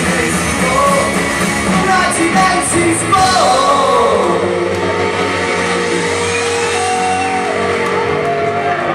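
Live rock band playing loud and continuous, with a voice singing or shouting over the music.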